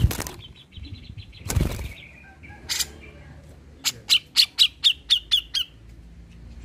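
Caged grey-cheeked bulbul (cucak jenggot) calling: a fast chattering trill, then a run of about eight sharp, clipped notes at about five a second. Two loud thumps as the bird moves about the cage, at the start and about one and a half seconds in.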